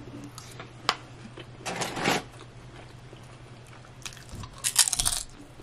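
Close-up mouth sounds of eating: soft chewing and a click, then a tortilla chip bitten with a crunch near the end, the loudest sound.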